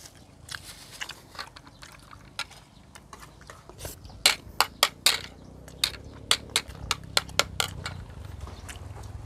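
Eating at a table: a run of about a dozen sharp clicks and taps from a metal spoon against dishes. They come quickest and loudest around four to five seconds in, and a low rumble rises under them near the end.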